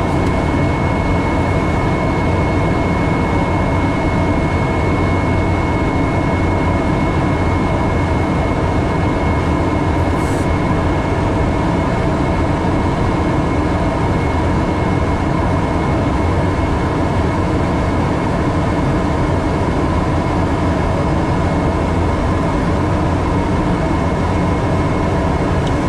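Steady cockpit noise of an airliner on approach: an even rush of airflow and engine rumble, with a thin, steady high whine running through it.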